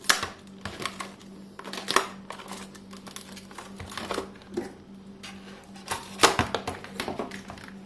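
A product box being opened and its packaging handled: irregular clicks, taps and rustles, the sharpest about two seconds in and again about six seconds in.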